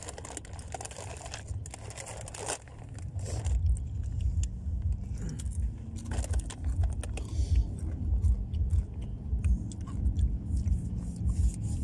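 Crunching and chewing of rolled tortilla chips and rustling of snack bags as hands dig in, with a loud, uneven low rumble starting about three seconds in.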